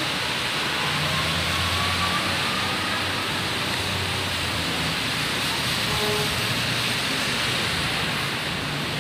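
Road traffic on a rain-wet city street: a steady hiss of tyres on wet asphalt, with the low hum of bus and car engines running under it.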